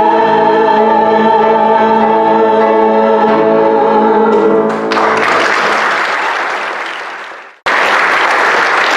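A man singing the song's final held note into a microphone with musical backing; about five seconds in, the congregation breaks into applause. The applause fades away, then comes back suddenly near the end.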